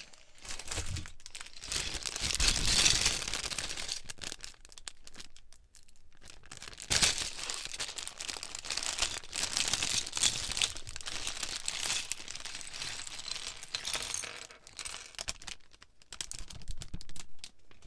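Clear plastic Lego parts bags crinkling as they are handled and torn open, with the small bricks inside rattling and spilling out onto the table.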